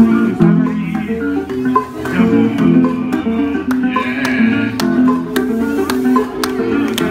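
A kora (West African harp-lute with a calabash resonator) played live, with a quick, repeating run of plucked notes. Scattered sharp hand claps sound over it.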